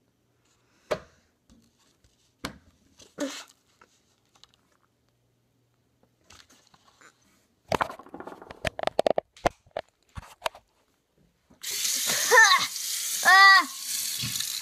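A boy sputtering and coughing after a spoonful of ground cinnamon, with scuffling as he hurries off, then a kitchen tap turned on and running into the sink about two-thirds of the way in, two short strained cries rising and falling over the water.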